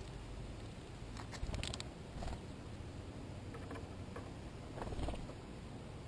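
White-breasted nuthatch pecking and scrabbling among seeds in a clear plastic feeder tray, close to the microphone. There are a few short clusters of light taps and rustles, the loudest about a second and a half in and again near five seconds, over a faint steady hiss.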